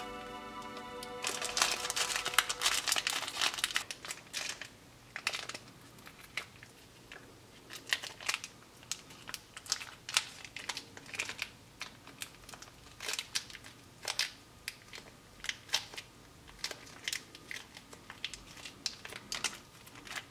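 Small foil and plastic ration seasoning sachets crinkling and tearing as they are opened and squeezed out by hand. The crinkling is densest for a couple of seconds early on, then comes in short scattered crackles. A held musical chord stops about a second in.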